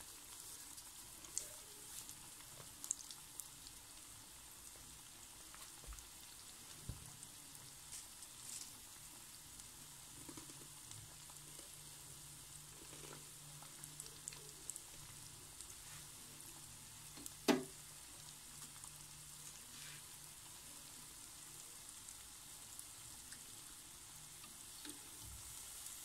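Potato dough shapes deep-frying in hot ghee in a karahi over a medium flame: a soft, steady sizzle with scattered small crackles and pops. One sharp click stands out about seventeen seconds in.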